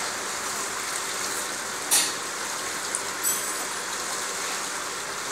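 Water spilling steadily from the tiers of a three-tier fiber fountain and splashing into its basin. A brief sharp sound stands out about two seconds in.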